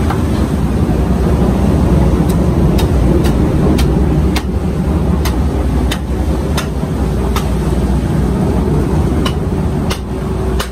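Steady low engine rumble, with sharp clicks at irregular intervals of about half a second to a second.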